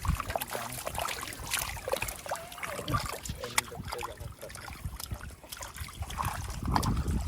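Water sloshing and splashing in a shallow, bailed-out muddy ditch as fish are groped for by hand, with scattered small clicks and splats.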